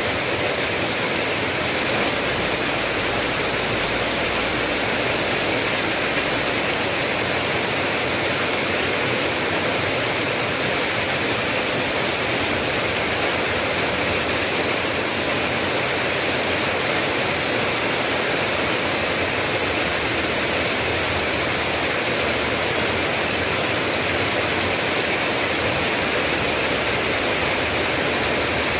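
Steady, dense rainfall: an even hiss of heavy rain with no breaks or single drops standing out.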